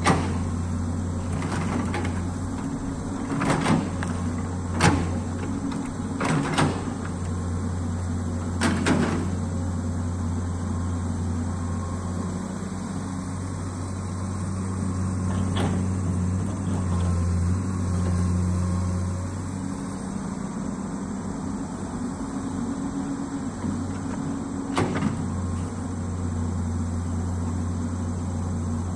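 Komatsu amphibious long-arm excavator's diesel engine running steadily under digging load, working a little harder around the middle. Several sharp knocks come in the first half and one more near the end.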